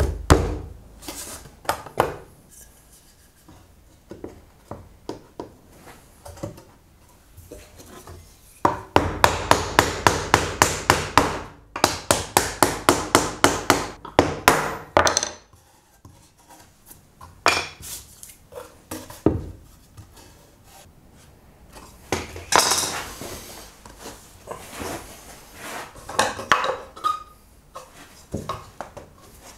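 Hand tools working wood while a dovetail joint is cut: scattered knocks and clatters, then two runs of quick, evenly paced strokes lasting several seconds, then more knocks and scrapes.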